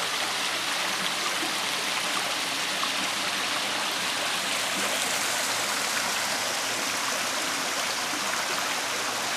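Backyard pool waterfall running: a steady, even rush of splashing water.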